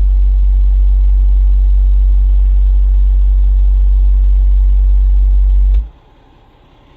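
A 10-inch car subwoofer playing one loud, steady, very low bass test tone, a 'burp' for an SPL meter reading. The tone cuts off suddenly about six seconds in.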